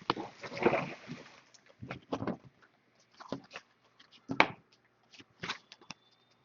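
Baseball cards being handled: a pack wrapper crinkles for about the first second, then cards are flipped through one by one with a string of short, soft taps and slides.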